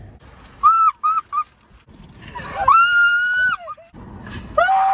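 A young woman shrieking in fright: three short high-pitched squeals about a second in, then one long high scream that falls away at its end, and another shorter cry near the end.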